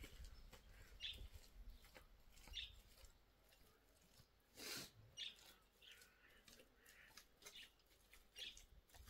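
Faint, scattered bird chirps, a short high call every second or two, over a quiet outdoor background, with one brief rush of noise near the middle.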